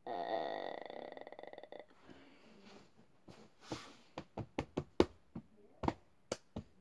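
A brief rasping rattle that fades out within about two seconds, then a run of sharp clicks and knocks as small items are picked up and set down on a desk.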